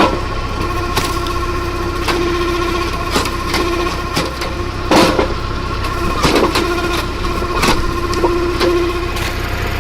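Tractor engine running steadily while working a tractor-mounted vertical wood splitter, with sharp knocks and cracks about once a second.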